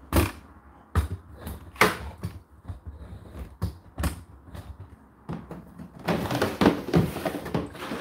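Plastic water-container drawer of an Indesit condenser tumble dryer being handled: a series of sharp knocks and clicks, then a plastic scrape lasting about two seconds near the end as the container slides out.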